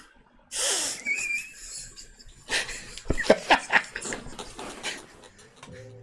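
People laughing: a sharp, breathy burst of laughter about half a second in, then a run of short breathy laugh pulses around the middle.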